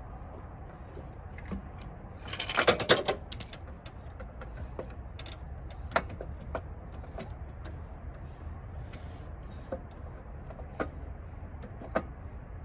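Metal tools and parts clinking and rattling during hands-on work in a car's engine bay. A dense clattering burst comes about two seconds in, followed by scattered single clicks.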